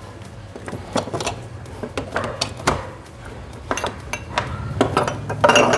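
Irregular metallic clinks and knocks of small hard parts and tools being handled, with a cluster of clatter near the end, over a low steady hum.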